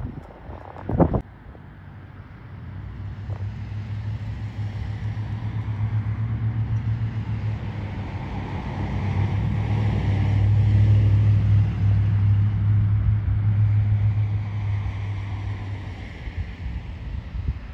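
Diesel engine of a rail track-maintenance machine running, a steady low hum that swells to a peak past the middle and then fades. A short sharp clunk sounds about a second in.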